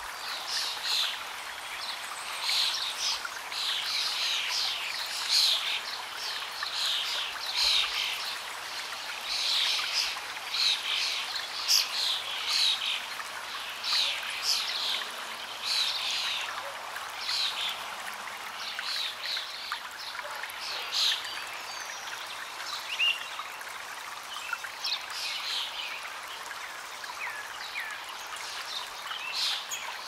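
A stream flowing steadily, with birds chirping in many short, quick notes over it. The chirping grows sparser about two-thirds of the way through.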